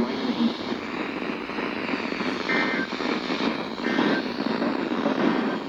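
Weather radio receiver static, a steady loud hiss, with three short faint bursts of the two-tone SAME data header of an Emergency Alert System message, about 1.3 seconds apart, starting about halfway through.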